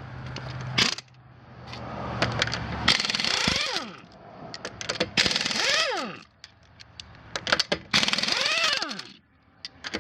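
Impact wrench spinning lug nuts off a car wheel. It runs in several short rattling bursts about a second long, and each burst ends with the motor's pitch falling as it winds down.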